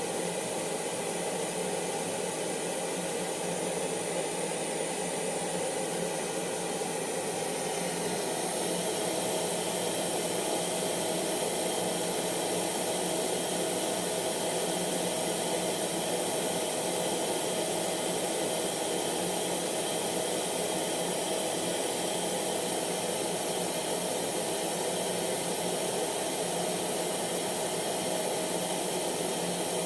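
Hair dryer running steadily: an even rushing blow with a faint whine in it, its tone shifting slightly about eight seconds in.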